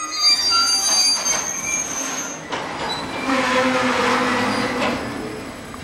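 Freight train of tank wagons, its wheels squealing and screeching on the rails as it moves slowly. High squeals set in suddenly at the start, and a denser, grinding screech follows about three seconds in.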